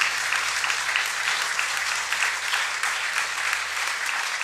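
Congregation applauding steadily: dense clapping from a room full of people.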